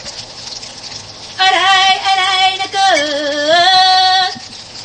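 A woman's voice singing long held notes for about three seconds, the pitch dipping near the middle and coming back up, over the steady sizzle of tofu frying in oil.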